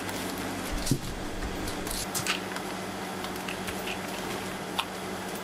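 A steady low machine hum with a few short crinkles and clicks from paper and plastic tubs being handled.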